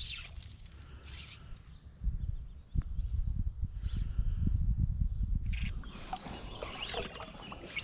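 Insects droning steadily in the streamside trees, a thin high buzz that never stops, over a low rumbling on the microphone from about two seconds in. A few short chirps come near the end.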